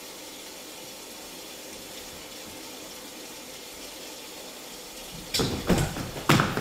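Steady hiss of rain on the sound track. About five seconds in, several loud thumps as a dancer drops onto the stage floor.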